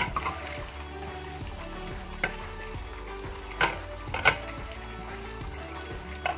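Tap water running and splashing onto soapy pots in a stainless steel sink, a steady hiss. A few sharp knocks come as the pots are handled: about two, three and a half, and four and a quarter seconds in, and again near the end.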